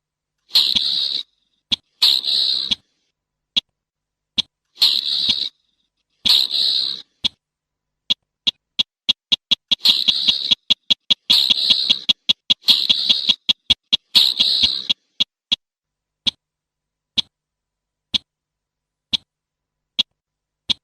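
Slaty-breasted rail calling: sharp, dry ticks mixed with harsh rasping calls about half a second to a second long. In the middle comes a fast run of ticks, about three a second, between rasps. Near the end only single ticks remain, about one a second, with dead silence between calls.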